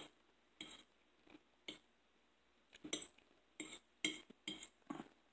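Metal fork tapping and scraping on a dinner plate while gathering food: about ten short, faint clinks and scrapes, unevenly spaced.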